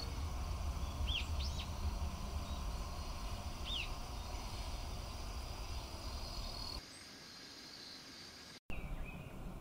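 Outdoor woodland background, a steady low rumble and hiss, with a few short high bird chirps in the first four seconds. About seven seconds in the background cuts to a quieter one, with a very brief dropout just before the end.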